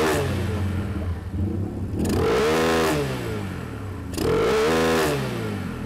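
Carburetted Honda BeAT scooter's single-cylinder engine being blipped with the air-filter box removed. The revs fall back from one blip, then two more quick throttle blips about two seconds apart each rise and drop back to idle. With the air box off, the engine picks up cleanly instead of stuttering for lack of air.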